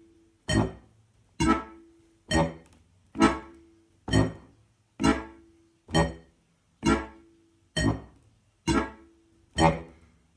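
Strasser Steirische Harmonika (diatonic button accordion) bass side played on the pull of the bellows: short, staccato bass notes and chords alternating in an even beat, about one a second, each cut off quickly.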